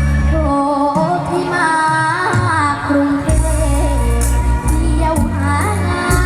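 A girl singing a song over band accompaniment with a steady bass, her voice sliding between notes.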